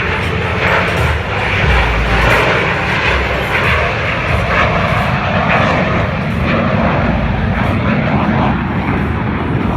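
Jet aircraft engine noise, loud and steady.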